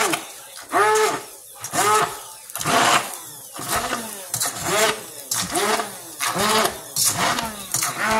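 Hamilton Beach immersion blender mashing cooked potatoes in a stainless steel bowl, its motor speeding up and dropping back in short pulses about once a second as it works through the thick mash.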